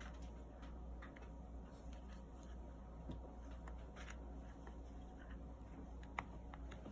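Faint, scattered ticks and clicks of hand crocheting: a metal crochet hook working through acrylic yarn and tapping against fingernails, with one sharper click near the end.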